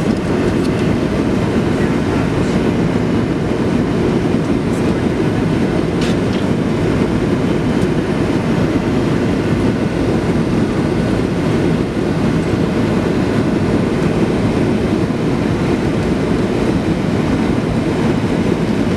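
Steady, deep cabin rumble inside a Boeing 737-700 on approach, heard from a seat over the wing: the CFM56-7 engines and the airflow over the fuselage and extended flaps.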